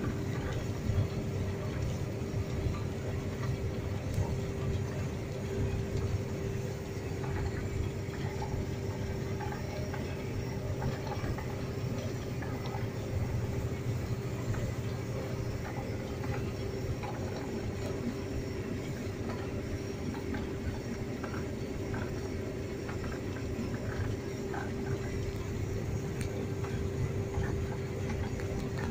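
Claas Tucano 470 combine harvester running steadily while cutting grain, heard from inside the cab: a low engine and threshing rumble with a constant whine over it.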